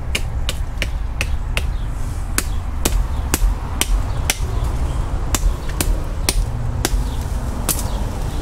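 Odenwolf W Sow Catcher fixed-blade knife chopping into wood: a steady run of sharp knocks, about two or three a second, over a low rumble.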